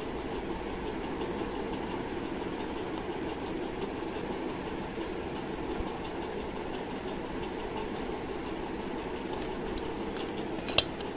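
Steady background hum, with a single sharp tap about a second before the end.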